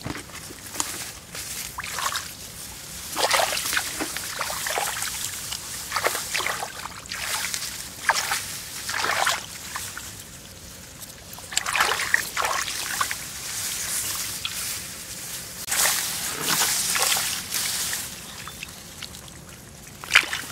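Shallow rice-field water being stirred: irregular bursts of sloshing and splashing with trickling in between.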